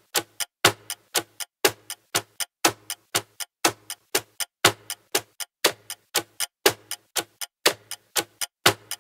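Countdown-timer clock-tick sound effect: sharp, even ticks about four a second, alternating stronger and weaker like a tick-tock, stopping just before the end.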